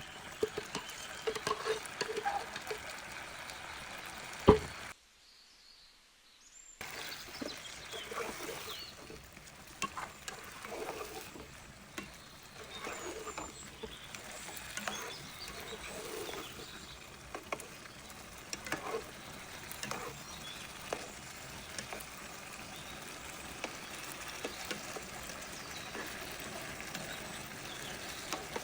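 Chicken korma sizzling in a pan while a spoon stirs and scrapes through it, with scattered clicks of the spoon against the pan. One sharp knock about four and a half seconds in is the loudest sound, followed by a brief near-silent drop-out before the stirring and sizzling resume.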